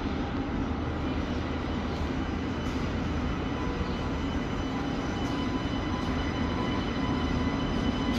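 Double-deck TGV Lyria high-speed train pulling slowly out of a station, a steady low rumble with several faint steady high tones, growing a little louder near the end as it approaches.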